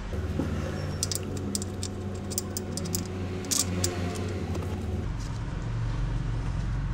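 Light metallic clicks and clinks from tools and parts being handled in an engine bay, scattered irregularly through the first few seconds, over a steady low hum that changes pitch about five seconds in.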